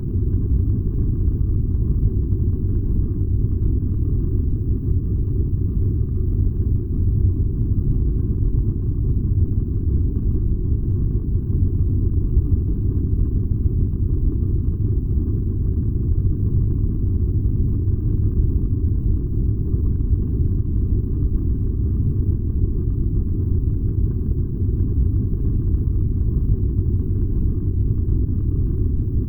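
Furnace running with a steady, deep rumble that never changes, with almost nothing above a low hum.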